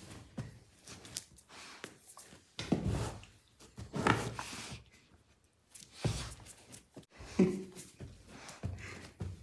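Irregular rustling, sniffing and thumps as a German Shepherd puppy moves about and noses at things on a bedsheet, with a brief low pitched sound about seven and a half seconds in.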